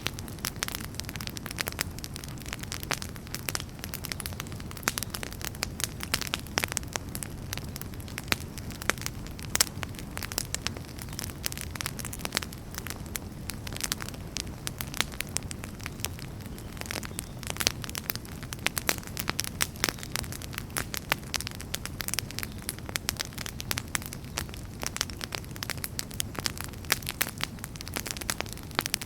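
Campfire burning and crackling: many irregular sharp pops and snaps over a steady low rumble of the flames.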